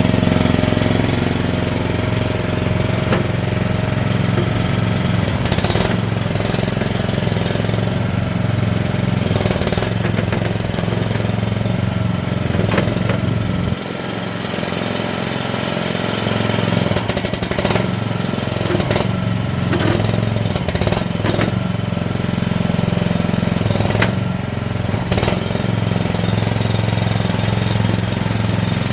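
AGT MX-MRT14 mini skid steer loader's small engine running steadily, with scattered clanks and knocks. The engine note drops briefly about halfway through.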